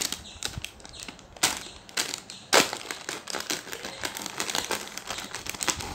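Plastic wrapper of an instant-noodle family pack crinkling and crackling as a knife is jabbed into it to pierce it open, with a few sharp cracks, the loudest about two and a half seconds in.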